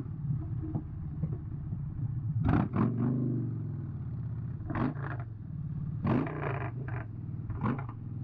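Motorcycle engine running steadily at low speed, heard from the rider's seat, while slowing for an intersection and turning. Several short sharp sounds break in over it.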